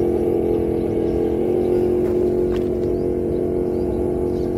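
Electric RC scale crawler's motor and gears whining steadily as it drives. Faint bird chirps come in during the second half.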